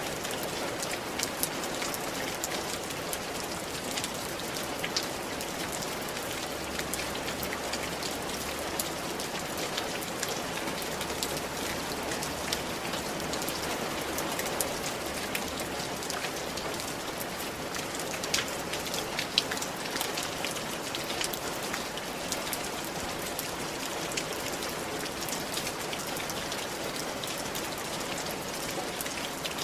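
Steady rain falling on a tiled roof, a constant hiss with many sharp drop impacts scattered through it.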